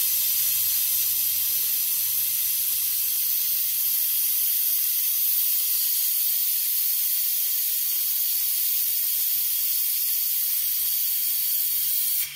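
Compressed air at about 110 psi hissing steadily through a Four Uncles pneumatic vacuum brake bleeder with its lever held down, its venturi pulling a vacuum that sucks brake fluid out of the master cylinder reservoir. The hiss cuts off suddenly near the end.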